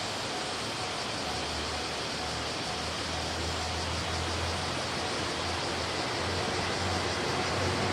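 Steady rushing noise with a low engine hum that grows a little louder near the end: a KiHa 189 diesel limited express train approaching a level crossing.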